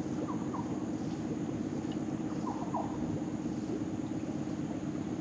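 A small boat's motor running steadily: an even hum with a constant low tone, with a few faint short chirps over it.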